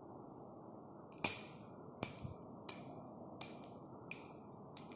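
Six sharp clicks, about one every 0.7 seconds, each dying away quickly, over a faint steady low hiss.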